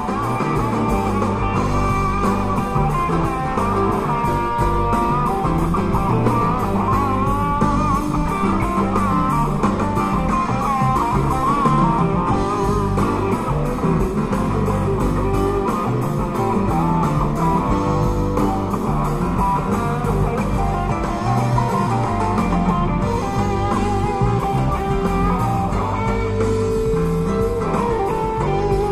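Music: a guitar-led blues-rock track with a steady beat.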